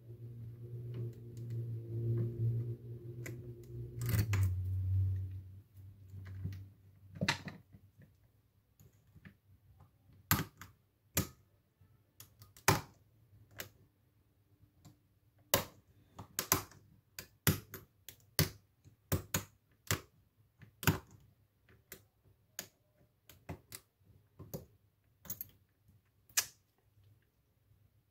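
Lock-picking: a steel pick and tension tool clicking and tapping in the keyway and against the pins of a challenge lock, in sharp, irregular clicks about one or two a second from about seven seconds in. A low hum sounds during the first few seconds.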